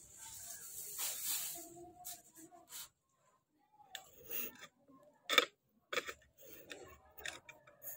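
A plastic bag crinkling and rustling as it is shaken out, then scattered handling noises of potting mix and a small plastic plant pot, with one sharp knock about five seconds in.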